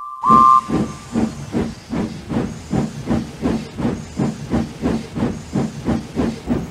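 Steam locomotive sound effect: one short whistle toot near the start, then steady rhythmic exhaust chuffing, about three to four puffs a second, as the engine pulls its train away.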